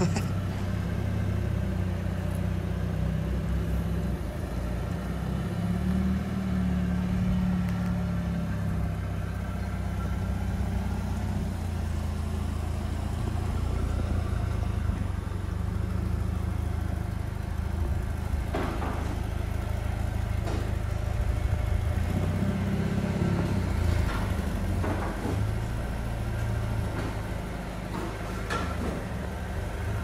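Mercedes-AMG CLA 35's turbocharged 2.0-litre four-cylinder engine running at idle and low revs while the car creeps along slowly, still on its factory exhaust with the particulate filter fitted. A few short knocks come in the second half.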